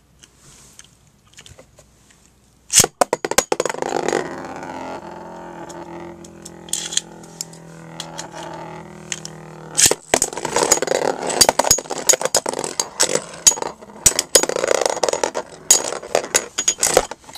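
Beyblade spinning tops launched into a plastic Beystadium. A sharp snap about three seconds in is followed by the steady whir of one top spinning. At about ten seconds a second snap sets off rapid, irregular plastic-and-metal clacking as the tops hit each other and the stadium walls.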